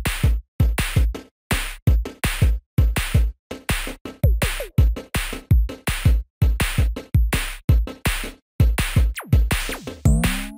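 Electronic background music with a steady drum-machine beat.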